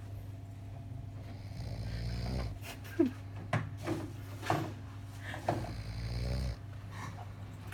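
Snoring: two long, low snores, with a few short, sharp sounds between them from about three to five and a half seconds in.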